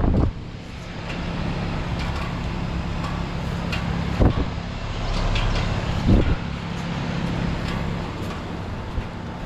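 Heat pump outdoor units running in heating mode: a steady compressor hum under fan noise, with two brief low thumps about four and six seconds in.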